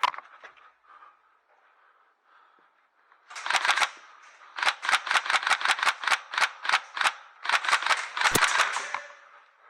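Airsoft gun firing in rapid shots: a short string about three seconds in, a longer run at about four to five shots a second, then another quick string near the end. A single sharp click comes at the very start.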